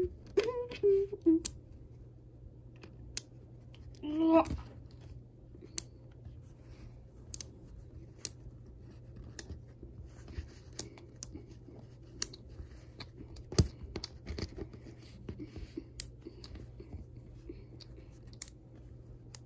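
Small magnetic building blocks being handled and snapped together: scattered, irregular sharp clicks, with one louder knock near the middle. A brief murmur of voice comes right at the start and again about four seconds in.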